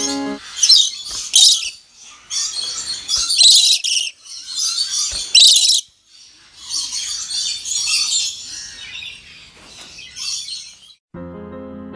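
Blue-streaked lories calling: a run of harsh, noisy, high-pitched calls, each lasting from half a second to a few seconds, with short gaps between them.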